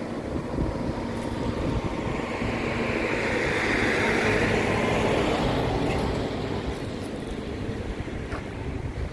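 Wind buffeting the microphone over a steady rushing noise that swells for a few seconds in the middle and then eases.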